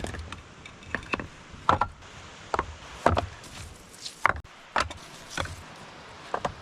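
Stones knocking and clacking against each other as rocks are set in place for a campfire ring: about eight sharp knocks at uneven intervals.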